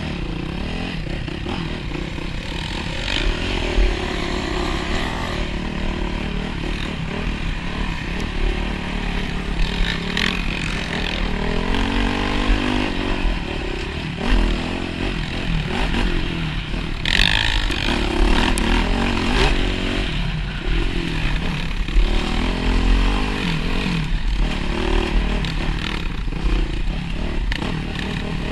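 Dirt bike engine ridden hard on a trail, revving up and falling back again and again as the throttle is worked, heard close from a helmet camera.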